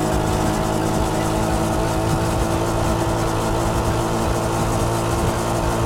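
A 1966 Honda P50's 50cc four-stroke single-cylinder engine running at full throttle near its top speed of just under 30 mph, heard from the rider's seat. The pitch holds steady.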